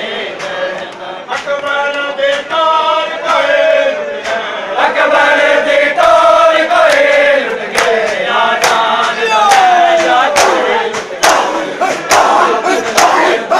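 A group of men chanting a mourning lament (noha) together in long, gliding notes. Sharp rhythmic chest-beating slaps (matam) join in and grow dense near the end.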